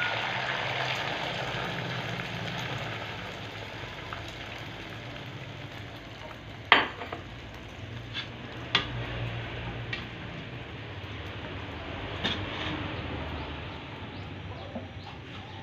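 Beaten egg frying in hot oil in a small black pan as an omelette sets: a steady sizzle that slowly dies down, broken by a few sharp clicks, the loudest about seven seconds in.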